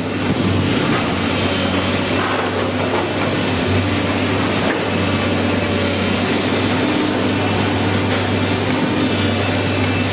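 Doosan DX300LC tracked excavator's diesel engine running steadily under load while it works a hydraulic demolition attachment, with a few knocks over the steady hum.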